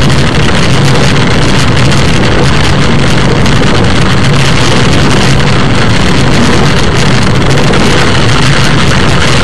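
Car driving on a wet road in heavy rain, heard from inside the cabin: a steady, loud mix of engine and tyre noise with a low hum under a hiss of rain and spray.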